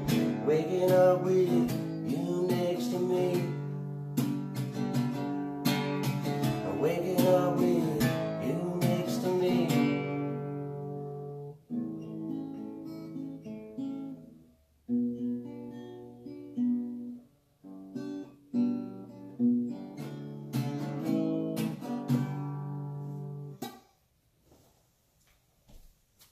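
Acoustic guitar strummed through a song's closing bars, thinning into slower, separate strums that ring out and stop about 24 seconds in.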